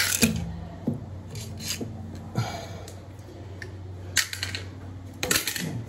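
Short, sharp scrapes, rustles and clicks of hands working with tools and wallpaper close to the microphone, about half a dozen strokes spread out, the loudest cluster near the end.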